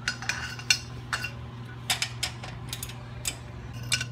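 Irregular metallic clicks and clinks of a wrench working on the bolts of a truck's front brake caliper, about ten in the span, over a steady low hum.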